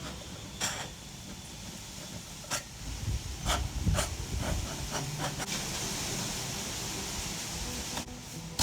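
Tin-can hobo stove grill in use: a steady hiss with scattered sharp crackles and clicks.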